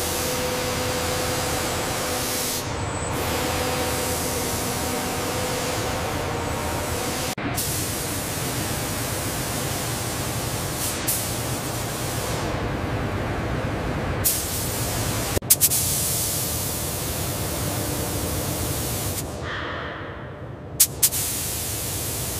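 Steady hiss of paint spraying equipment blowing a mist of paint, broken by a few abrupt cuts. There are a couple of sharp clicks near the end.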